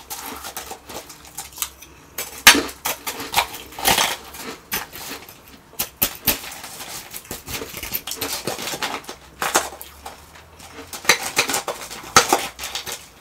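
Metal spoon scraping and clinking in a metal bowl of refrozen shaved ice, mixed with the crunching of mouthfuls of the ice. Irregular sharp crackles that come in clusters.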